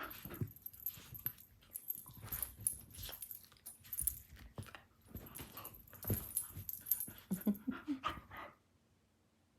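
Two dogs play-fighting: irregular scuffling and thuds of paws and bodies, with a few short, low dog vocalisations near the end before it goes quiet.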